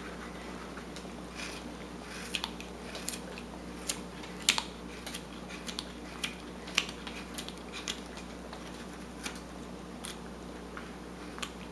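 Whittling knife shaving wood: short, crisp slicing clicks at an irregular pace, roughly one or two a second, as chips are cut away, over a faint steady hum.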